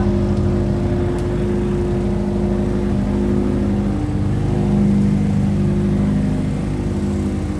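Car engine running close by, a steady low drone that swells slightly about five seconds in.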